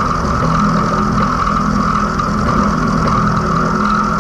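Small vertical milling machine running, its four-flute slot drill cutting a block of mild steel as the table is fed by hand. A steady high whine from the cut sits over a low, even hum from the machine.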